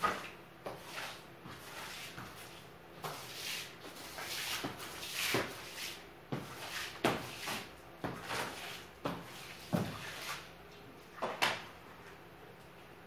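Long-handled broom swishing across a hard floor in about a dozen irregular strokes, with a few light knocks.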